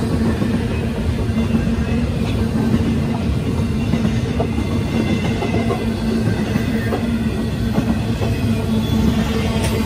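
Freight train rolling past: a steady, loud rumble of railcar wheels on the rails with faint clicks from the rail joints.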